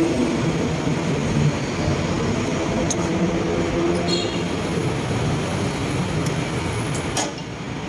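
Steady low rumble of heavy vehicles and engines, with a few light clicks about three, four and seven seconds in.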